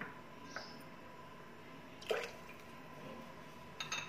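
Liquid sauce dripping into broth in a saucepan: a few soft drips, the clearest about two seconds in, over a faint steady hiss, with light clicks near the end.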